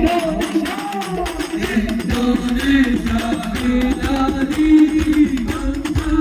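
Music: singing with held notes over hand percussion with a jingling, tambourine-like sound.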